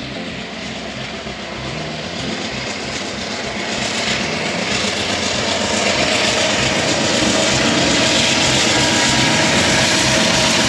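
Amtrak diesel locomotive hauling double-deck passenger cars as it approaches and passes: engine running and wheels on the rails, growing steadily louder, with a steady high tone joining about six seconds in.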